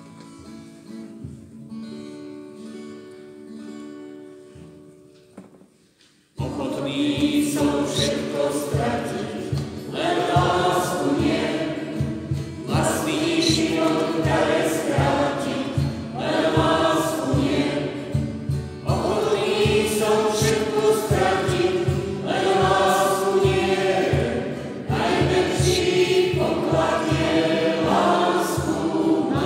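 Slovak Christian song: a quiet acoustic guitar passage, then about six seconds in a choir of voices comes in loudly, singing over steady guitar strumming.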